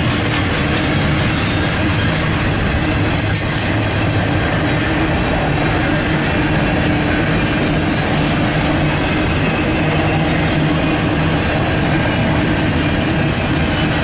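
Loaded double-stack intermodal well cars rolling past close by: a steady noise of steel wheels running on the rails, with a short run of clicks about three seconds in.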